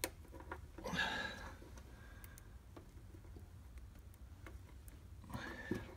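Faint scattered ticks and clicks from hands working a small wire-stripping tool on sensor wiring, with a short louder rustle about a second in and another near the end.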